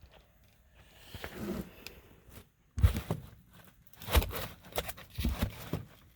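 Rusted-through HVAC condensate drain pan crunching and scraping as it is handled: several sharp crunches and rasps, starting about halfway in. The pan is rotted out.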